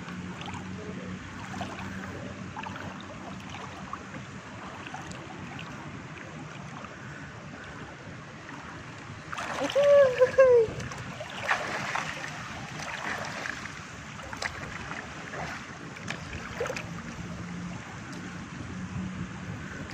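Swimming-pool water lapping and trickling steadily, with a louder splash about halfway through as a swimmer lifts his arms and lets water pour off them, then a few smaller splashes. A short rising-and-falling vocal cry comes with the big splash.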